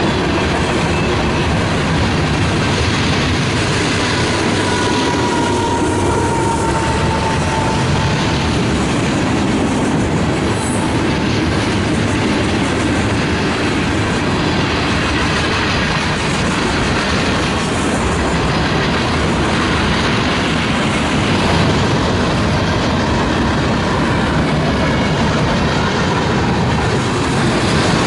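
A long Union Pacific mixed freight train's cars rolling steadily past at speed, with continuous wheel-on-rail noise and clickety-clack. A faint high wheel squeal sets in about five seconds in and slides slightly down.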